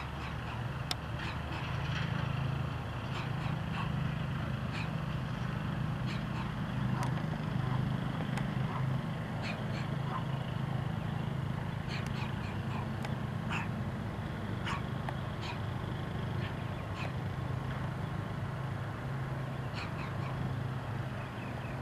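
Rebuilt engine of a Pietenpol Air Camper light plane in flight, a steady drone that swells a little a few seconds in. Short high chirps come and go over it.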